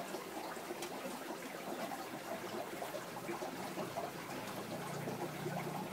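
Steady trickling of water, with a faint low hum joining near the end.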